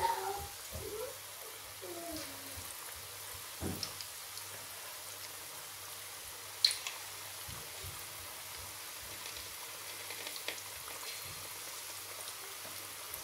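Besan pakoras deep-frying in hot oil: a steady sizzle with fine crackling, broken by a few sharp clicks, the loudest about six and a half seconds in.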